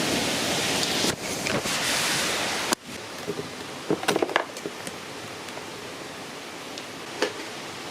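Heavy rain pouring in a thunderstorm with wind. It cuts off suddenly about three seconds in, leaving a much quieter background with a few faint clicks and knocks.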